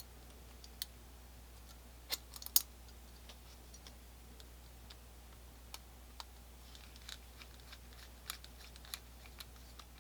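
Sparse small metallic clicks and taps of Colt black powder revolver parts handled and fitted into the frame by hand as the trigger is set in place, with a sharp cluster of clicks about two seconds in and lighter ticks near the end, over a faint steady hum.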